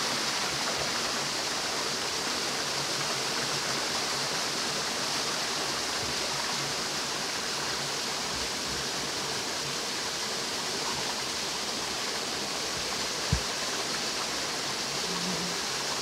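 Shallow rocky creek running steadily over small rapids, a constant rushing of water. One brief low thump about 13 seconds in.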